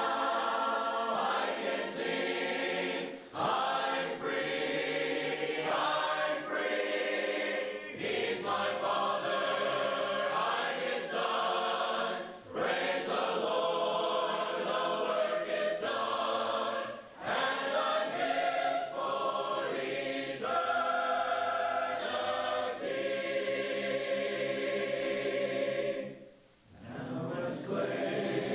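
Church congregation of men and women singing a hymn a cappella, in sung phrases with short breaks for breath between lines and a longer gap near the end before the next line starts.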